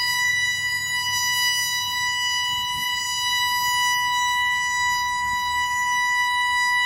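A steady electronic tone played loud through a DJ sound system during a sound check, held at one unchanging pitch with strong overtones.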